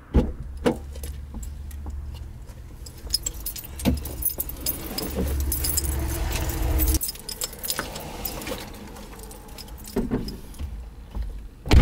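Keys jangling, with rattles and clicks as a canvas backpack is handled in a parked car with its door open, over a low rumble that stops about seven seconds in. A sharp knock near the end.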